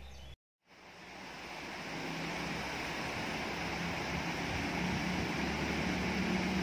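Water of a small rocky stream running over rapids: a steady rush of noise that fades in after a brief silence near the start.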